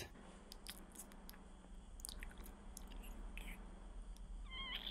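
Faint soft clicks and scrapes of a small metal spoon cutting into a warm mini graham-cracker pie in a foil tin, over a low steady hum.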